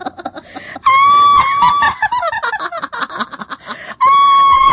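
Horror-effect ghost laugh: a long, shrill, high-pitched shriek about a second in that breaks into rapid cackling, then a second long shriek near the end.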